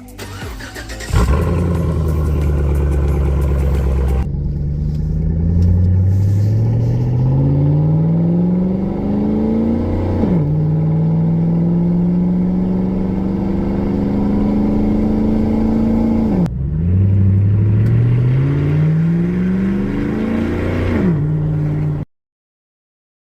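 Chevy Silverado pickup's engine accelerating through the gears. The engine note climbs steadily and drops sharply at each upshift, about ten seconds in, again at about sixteen seconds, and once more near the end. It holds nearly steady between the first two shifts, then the sound cuts off abruptly.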